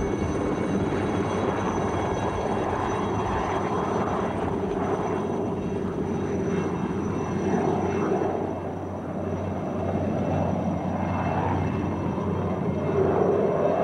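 Alouette III turbine helicopter running as it lifts off and flies, a steady turbine whine over the beat of the rotor.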